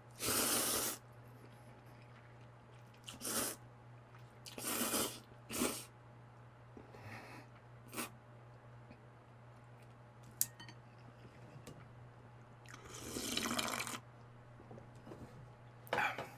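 A person slurping sauce-coated instant noodles in a series of separate pulls, the two longest lasting about a second each, near the start and about three-quarters of the way through.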